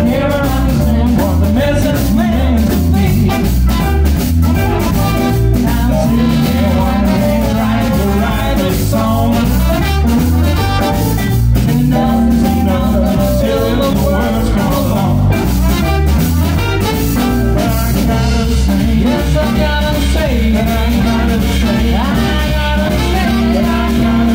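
Live band playing a song, with electric guitar, keyboards and drums.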